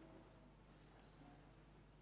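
Near silence: a pause in the guzheng ensemble music, with only a few faint lingering notes and a low steady hum.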